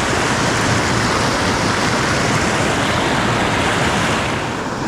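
Steady rushing of a creek running high and fast after heavy rain.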